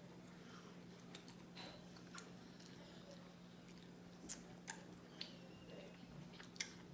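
Faint close-up chewing of barbecue chicken wings, with scattered mouth clicks and a few sharper smacks in the second half. A steady low hum runs underneath.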